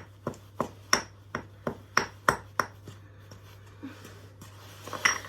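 Washing machine banging with sharp, metallic knocks about three times a second. The knocks stop about three seconds in, leaving a steady low hum.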